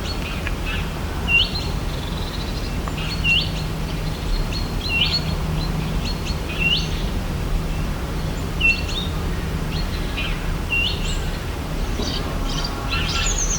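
A songbird repeating the same short, high call about every two seconds, six times, over a steady low background hum. Near the end, busier chirping from other birds joins in.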